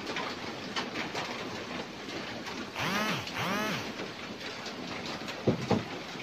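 Light, scattered clicking and rattling from a wire-mesh cage trap holding a rat. About three seconds in come two short pitched calls, each rising then falling, and two sharp knocks follow near the end.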